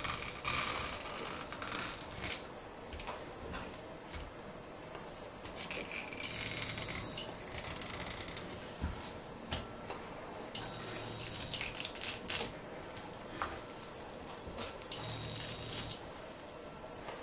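A high, steady electronic beep sounds three times, each about a second long and some four seconds apart, over faint scraping and light clicks of a knife cutting a herring fillet on a wooden cutting board.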